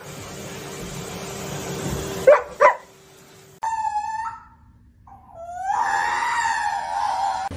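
A pet's cries: two short sharp yelps about two and a half seconds in, then a short wail and a long drawn-out wail that rises and holds near the end.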